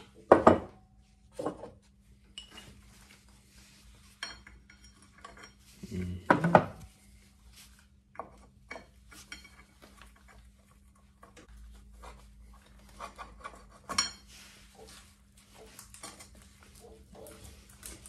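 Metal hand tools and brake parts clinking and knocking at a motorcycle's rear brake caliper while the pads are changed and the pistons pushed back. Louder knocks come about half a second in, around six seconds and at fourteen seconds, with a brief metallic ring about four seconds in.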